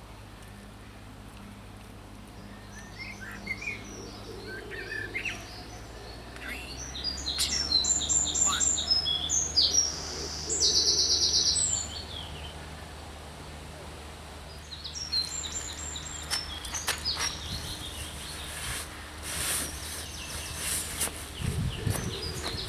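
Small birds singing and chirping in short phrases, with a fast, even trill about ten seconds in as the loudest part. A low steady hum runs underneath.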